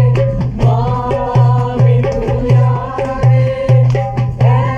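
A hand drum played with fingers and palm in a steady, quick rhythm of deep strokes, about two to three a second, with voices singing a melody over it.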